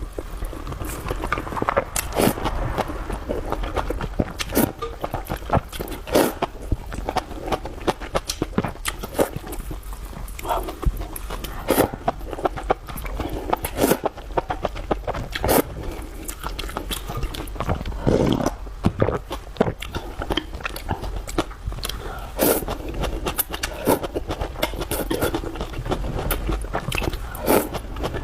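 Close-miked eating sounds: a person biting and chewing food, with many irregular wet mouth clicks and smacks.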